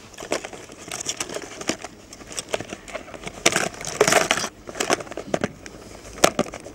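Jacket fabric rustling and scraping against a clip-on microphone's furry windshield as the arms move, mixed with crinkling of small hook packets being handled; it comes in irregular bursts, loudest about four seconds in.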